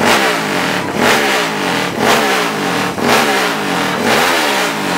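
Drag-racing motorcycle engine revved in five sharp blips, about one a second, its pitch falling back after each one.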